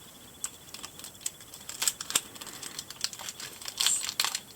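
Thin plastic insert being handled and pulled from a fashion doll's trouser outfit: scattered light clicks and crinkles, with a busier run of crinkling just before the end.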